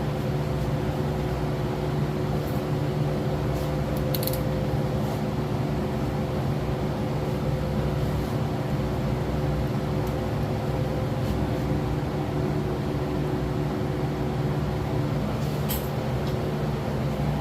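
Steady mechanical hum from a running machine such as a fan or motor, with a few light clicks about four seconds in and again near the end.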